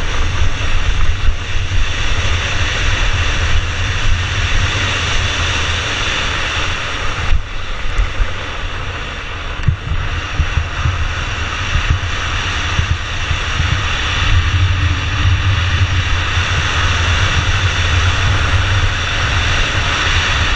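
Wind buffeting the rider-mounted microphone over the steady rumble and hiss of a drift trike's wheels rolling fast on an asphalt road downhill.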